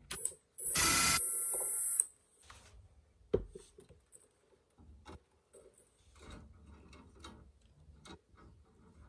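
Ryobi ONE+ 18V cordless driver runs for about a second and a half, backing out the screw that holds an electrical outlet in its wall box. A sharp click follows about three seconds in, then light clicks and rustling as the outlet and its wires are handled.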